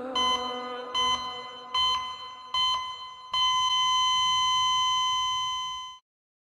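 Patient heart monitor beeping four times, a little under a second apart, then going into one continuous flatline tone that cuts off suddenly: the sign that the heart has stopped.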